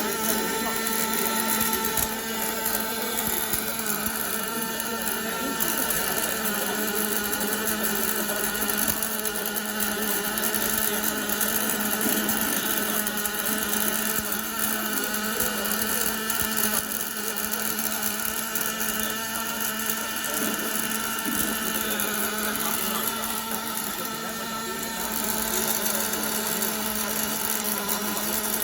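Steady hiss and crackle of a welding arc from a 5-axis CNC welding machine laying a bead, with a steady machine hum under it. It eases off briefly a few seconds before the end.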